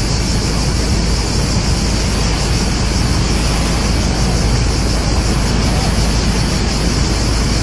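Loud, steady rushing roar with a deep rumble beneath, as of a large forest fire burning close by with wind on the microphone.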